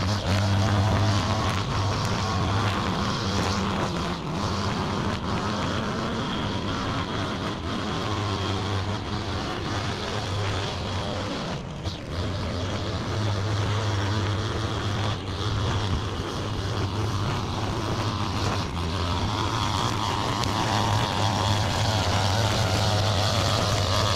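Gas string trimmer running steadily while cutting grass along the edge of a gravel path. Its drone is fainter through the middle of the stretch as the trimmer moves away, and louder again in the second half as it comes back.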